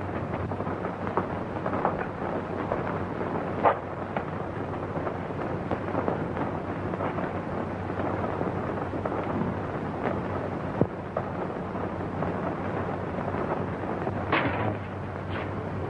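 Electric arc crackling and buzzing over a steady electrical hum, with sharp snaps now and then.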